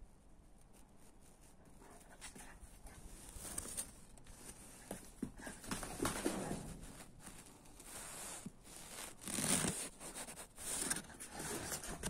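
German Shepherd dog snuffling and moving close by: irregular short raspy rustles, with louder bursts about six and nine and a half seconds in.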